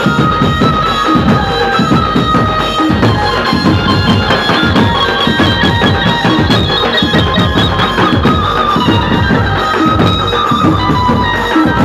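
Dhumal band music blasting from a truck-mounted horn-loudspeaker rig: a held, high melody line over dense, heavy drumming.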